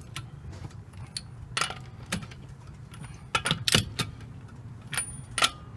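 Sharp metallic clicks and clinks of a socket wrench working on a car wheel's lug nuts, several separate strokes with the loudest cluster a little past the middle, over a steady low hum.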